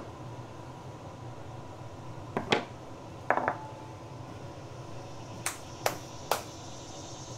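Kitchenware being handled on a prep table: a pair of knocks about two and a half seconds in, a short ringing clink a second later, then three sharp ticks about half a second apart, over a steady low hum.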